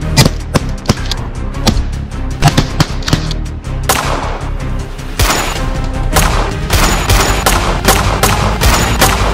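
Repeated gunshots, several a second in irregular runs, over background music.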